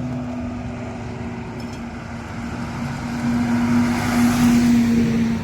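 Motor vehicle engine running with a steady hum, growing louder about three seconds in and easing off near the end.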